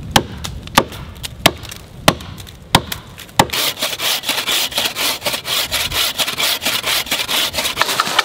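A small axe chopping into the trunk of a standing sapling with six sharp strikes about two-thirds of a second apart. Then a wooden-framed buck saw cuts through the trunk in quick, steady rasping strokes, cutting the sapling down.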